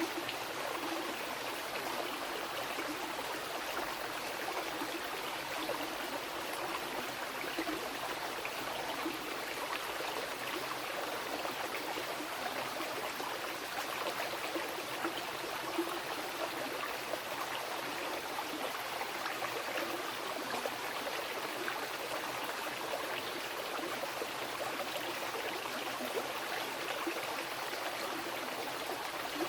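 Wild mountain river flowing over rocks: a steady, even rush of water.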